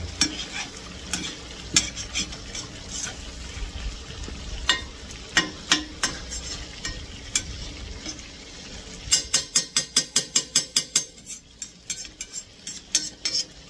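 Meat, onion and potatoes sizzling in hot oil in a cast-iron kazan while a metal slotted skimmer scrapes and knocks against the pot, turning them so the potatoes soak up the oil. About nine seconds in comes a fast run of knocks, about five a second, then a few more scattered ones.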